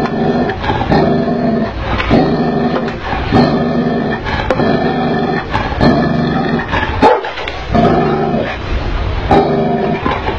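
Tibetan mastiff barking over and over in deep, drawn-out barks, about one a second, with a short break about seven seconds in.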